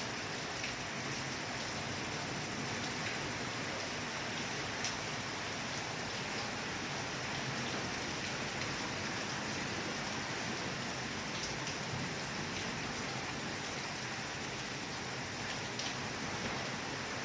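Steady rain falling, an even hiss with a few sharper drop hits now and then.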